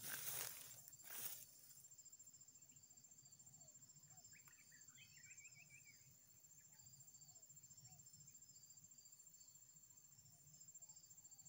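Faint, steady high-pitched insect chirring with a fast pulsing trill, and a short run of quick bird notes about five seconds in. In the first second or so, a few rustles of steps through the undergrowth.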